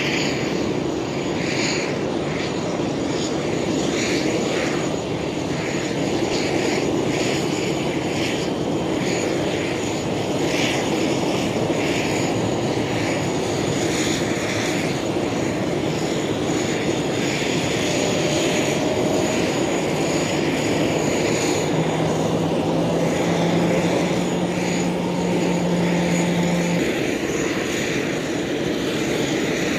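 Business jet's engines running as it lands and rolls out on the runway: a steady, loud jet noise, with a low hum joining in for a few seconds past the middle.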